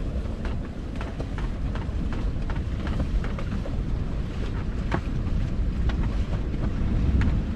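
Wind blowing across the microphone aboard a sailboat under way: a steady low rumble with a few faint clicks.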